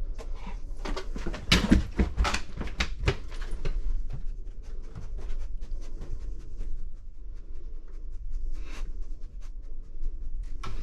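A dog panting and sniffing as it searches, with several knocks and bumps of movement in the first few seconds, over a steady low hum.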